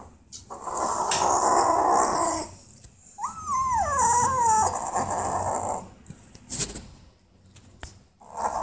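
Kitten growling in two long stretches. About three seconds in it breaks into a wavering yowl that rises and then slides down in pitch. It is guarding a small object held in its mouth against a hand grabbing it.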